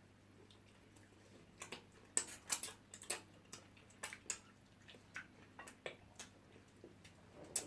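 Eating sounds: a run of irregular, sharp wet clicks and smacks from people chewing and smacking their lips, densest about two to three seconds in.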